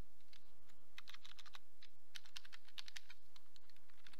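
Typing on a computer keyboard: a quick, uneven run of keystrokes.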